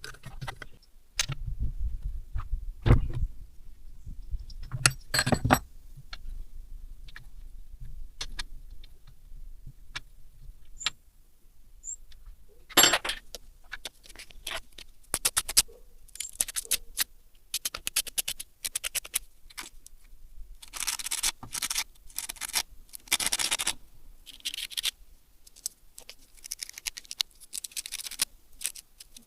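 Small metal parts and hand tools clinking, clicking and scraping on a workbench, with a few heavier knocks in the first few seconds and longer scraping passes in the second half.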